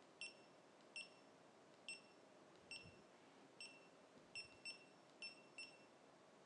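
GoPro Hero3+ Black action camera giving short, high electronic beeps, about nine in all at uneven intervals, each one a press of its front buttons as the on-screen menu is stepped through.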